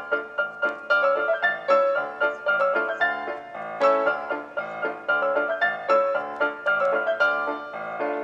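Background music: a piano playing quick runs of struck notes, starting abruptly.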